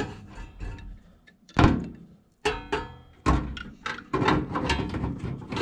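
Metal furnace parts clanking and knocking as they are handled and fitted back into place, about half a dozen sharp knocks, each with a brief metallic ring.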